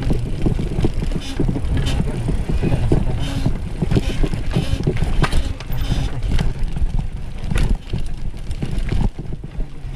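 A bicycle being ridden: a steady low rumble with frequent knocks and rattles.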